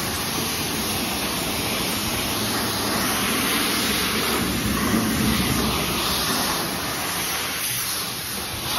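Pressure-washer wand spraying a jet of water against a pickup truck's body panels, a steady spray as the jet is moved along the truck.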